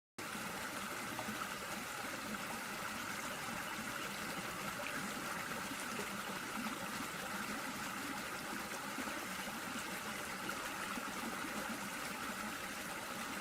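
Stream water running, a steady, even rush.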